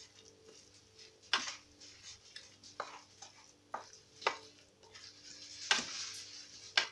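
Wooden spoon stirring a raw egg into a cooked vegetable filling in a pan: soft scraping, with about six sharp clicks of the spoon against the pan spread through the stirring.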